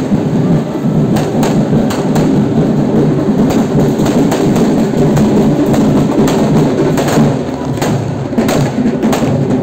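Fireworks and firecrackers going off in an irregular series of sharp bangs, about two a second, over a steady din of crowd and music.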